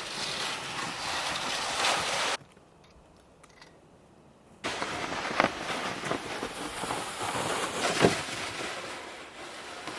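Wind rushing on the microphone with crunching footsteps in snow while walking. The sound drops out abruptly for about two seconds, starting about two and a half seconds in, then resumes with a couple of sharper crunches.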